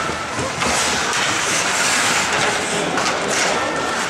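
Ice hockey play: skates carving and scraping on the ice in a steady hiss, with several brief louder scrapes.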